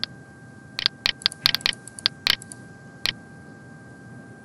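Computer mouse clicking: about a dozen short, sharp clicks, some in quick pairs, bunched between about one and three seconds in.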